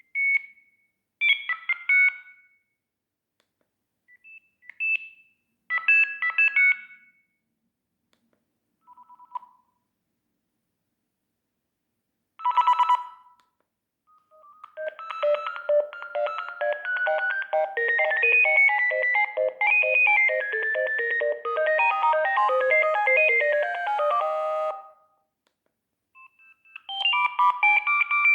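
Sagem myX-3 mobile phone playing its built-in tones one after another: six short electronic alert tones of a few beeping notes each, separated by pauses, then a melody of rapid notes lasting about ten seconds, and another melody starting near the end.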